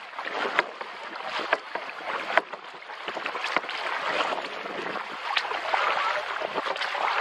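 Water sloshing and splashing around a kayak as it is paddled, with sharp splashes or knocks from the paddle strokes about once a second.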